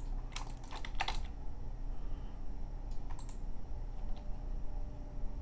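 A few clicks of a computer keyboard and mouse in short clusters, near the start, around one second and again around three seconds, over a steady low hum.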